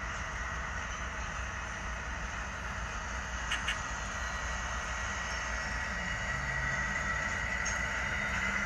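Railroad cars rolling past with a steady, high wheel-flange squeal over a low rumble. There are a couple of sharp clicks about three and a half seconds in, and the sound grows a little louder near the end.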